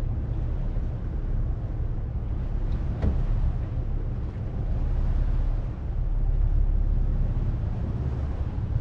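Steady low rumble of a small workboat underway, its engine running with wind buffeting the microphone, and a single knock about three seconds in.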